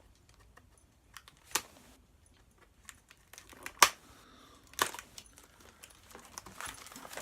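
Plastic packaging being cut and torn open by hand: soft crinkling with a few sharp clicks and snaps, the loudest about four seconds in.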